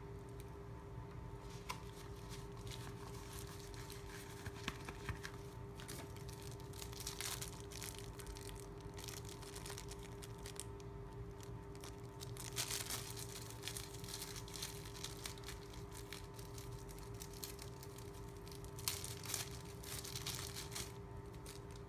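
Small clear plastic bag crinkling and rustling as it is handled and opened, in irregular crackles that come thicker about halfway through and again near the end.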